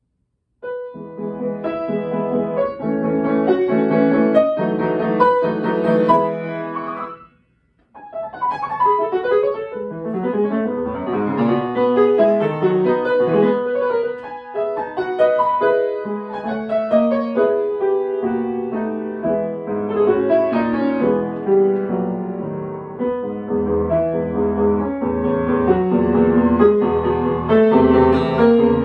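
Grand piano played solo, a flowing piece of many notes. It begins about half a second in, stops briefly about seven seconds in, then carries on, with deep bass notes joining in the last few seconds.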